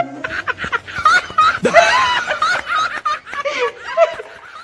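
A child giggling and snickering in several short runs of high-pitched laughter, trailing off near the end.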